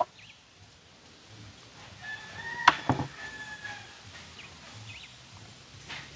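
A rooster crows once, a long held call starting about two seconds in, while sticks of firewood knock sharply twice as they are stacked in a stone hearth. A few faint short chirps come and go.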